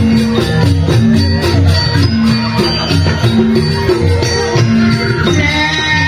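Balinese gamelan playing a rhythmic piece: bronze metallophones ringing in quick repeated strokes over a deep bass, with jangling metal percussion.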